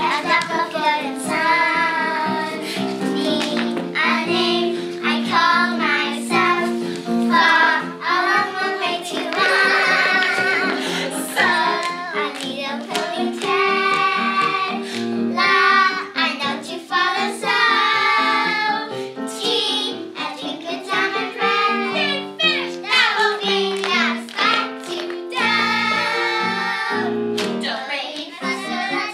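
Young girls singing a show tune with instrumental accompaniment.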